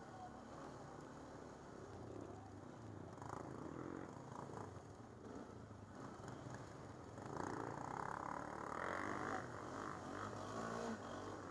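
ATV engine running at low trail speed with a steady low rumble, getting louder from about seven seconds in as the throttle is opened over rough ground.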